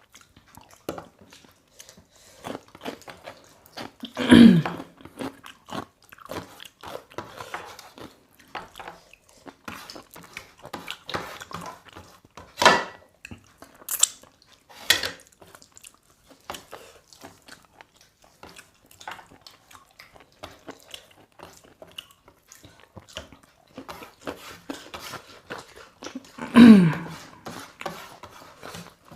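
People chewing and biting chicken close to the microphone: a steady run of small wet mouth clicks and smacks. Twice, about four seconds in and again near the end, a brief louder sound drops in pitch.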